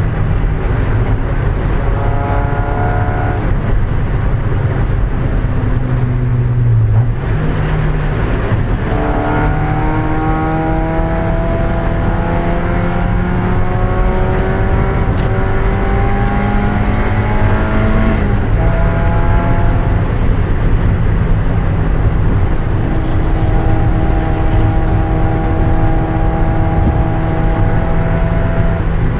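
A 1995 Mazda Miata's 1.8-litre four-cylinder engine running hard at race pace. Its pitch climbs steadily and drops sharply at upshifts, about a quarter and about two-thirds of the way in, over a constant rush of road and wet-tyre noise.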